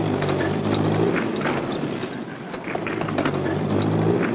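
Pindair Skima 4 hovercraft running: a steady, low, pitched engine-and-fan hum that eases a little around the middle and builds again toward the end.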